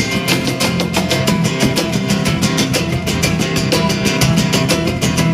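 Live acoustic rock band playing an instrumental stretch of a song: strummed guitars over a steady drum beat, with no singing.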